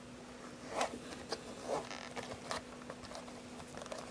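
Hands handling a compact camera in its case and strap: a few short rustles and clicks, over a steady low hum.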